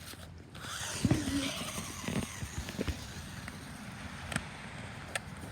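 Battery RC car stuck in snow, its motor briefly whirring as the wheels churn snow, with a few scattered ticks and knocks.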